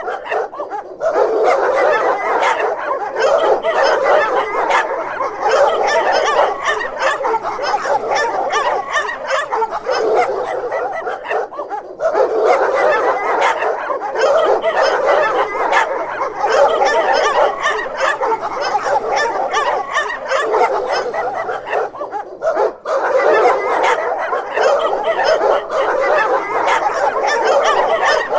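Dogs barking nonstop in dense, overlapping barks mixed with higher yips, easing briefly about twelve and twenty-two seconds in.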